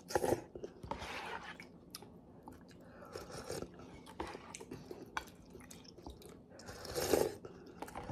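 A person eating instant ramen close to the microphone: several short, noisy slurps of broth and noodles off a spoon, with chewing between them; the loudest slurp comes about seven seconds in.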